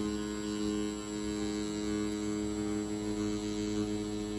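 Rotary tattoo pen machine running with a steady hum while its cartridge needle pulls a line on practice skin.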